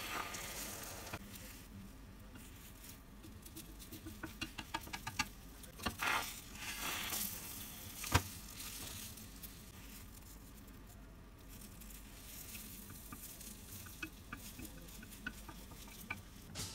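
Beaten egg sizzling faintly in a rectangular tamagoyaki pan while a rolled omelette is made, with wooden chopsticks tapping and scraping against the pan. Clusters of small clicks come in the middle, with one sharper knock about eight seconds in.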